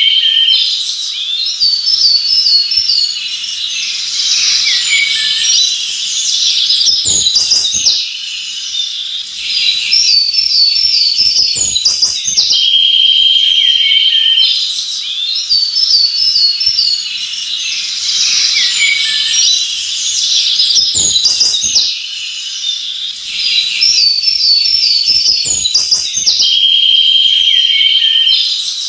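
Forest birds chirping and singing together: a buzzy trill, runs of quick repeated notes and scattered calls. The same stretch repeats about every 13 seconds, as in a looped recording, with a few brief soft knocks.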